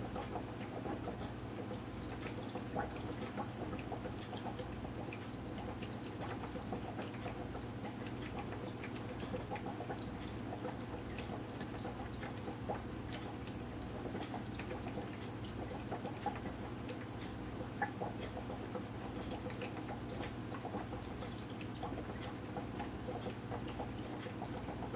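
Aquarium filter running: water trickling and bubbling with many small irregular pops over a steady low hum.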